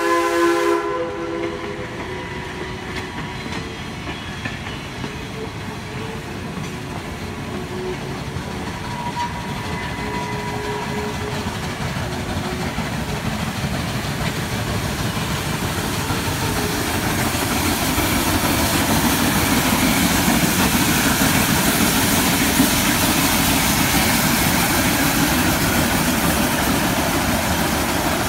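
Steam whistle of Shay locomotive No. 11, a geared steam locomotive, cutting off about a second in. Then the locomotive working steam as it pushes its train past, growing steadily louder as it nears, with the cars running over the rails.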